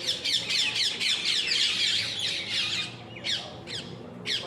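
A flock of birds calling at once, many short calls that each slide down in pitch and overlap into a busy chatter, thinning to a few separate calls near the end.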